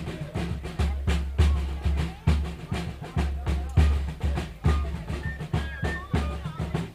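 Bass drum and snare drums of a North Mississippi fife and drum band playing a steady beat, a heavy bass-drum stroke about every second with lighter snare strokes between. Voices sound under the drums, and a few short, high held notes come in about five seconds in.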